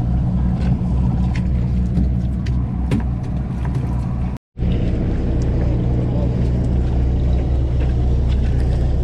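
Sportfishing boat's engine running with a steady low drone, with scattered light clicks over it. The sound cuts out for a split second about halfway through.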